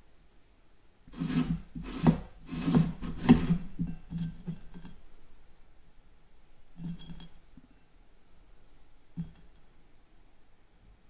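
Small steel ball bearings clicking and clinking as they are handled and pushed one by one into the greased ball track of a linear bearing carriage: a busy run of small clicks for a few seconds, then a short group and a single click later.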